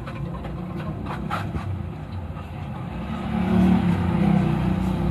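A motor vehicle's engine rumble that swells to its loudest near the end, as if passing close by, with a few faint clicks in the first two seconds.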